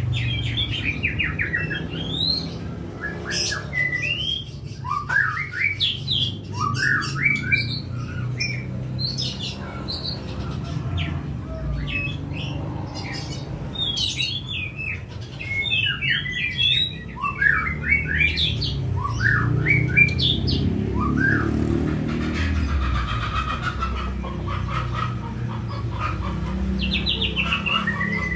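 Many small birds chirping busily in quick, overlapping short calls, over a low steady background hum.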